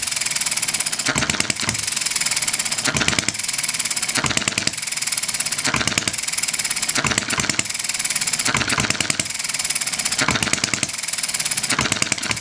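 1/8-scale Galloway hit-and-miss model gas engine with spark-plug ignition, running in its hit-and-miss cycle. It fires a short cluster of sharp pops about every one and a half seconds and coasts on its flywheels with a light mechanical clatter in between.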